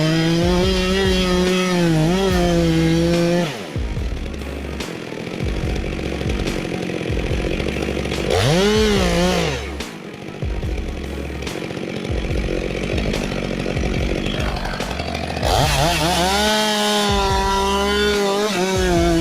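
Chainsaw running at high revs, its pitch sagging and wavering as it cuts. For several seconds in the middle it drops to a lower, rougher running with one short rev up and back down. Near the end it runs at high revs again.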